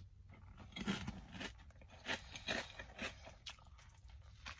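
A person chewing a dipped chip close to the microphone: soft, irregular crunches about every half second.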